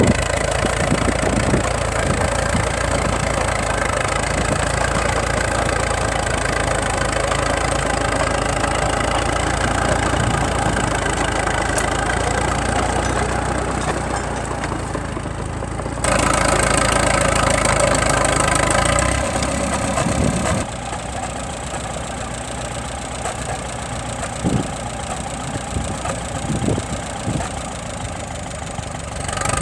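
Tractor engines running steadily, the sound changing abruptly twice about halfway through, with a few short low thumps near the end.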